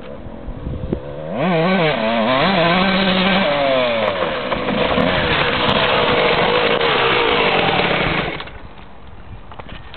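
1994 Honda CR125's 125cc two-stroke single-cylinder engine revving, its pitch rising and falling, then held at high revs for several seconds before it drops away about eight seconds in.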